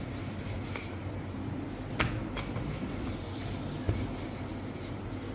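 Kitchen noise of a paratha cooking on a tawa: a steady background noise, with two sharp clicks about two seconds in and a lighter knock near four seconds.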